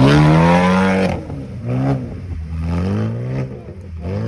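Off-road vehicle's engine revving hard in mud: it is held high for about a second, then blipped in a series of short rising and falling revs.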